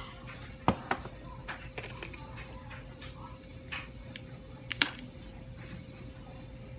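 Scattered light clicks and taps from spice shakers being handled and a rack of pork ribs being rubbed with seasoning on a metal sheet pan. The sharpest clicks come just under a second in and about five seconds in, over a faint steady hum.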